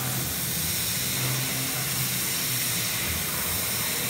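CNC laser cutter cutting sheet metal: a steady hiss from the cutting head over a low, steady machine hum.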